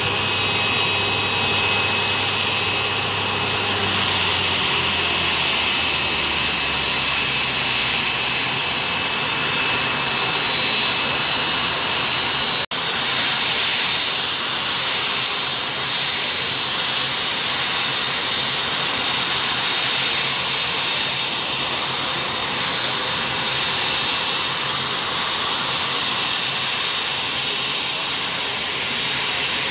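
Jet Provost's Armstrong Siddeley Viper turbojet running steadily on the ground, a continuous high whine over a broad jet rush. The sound cuts out for an instant about halfway through.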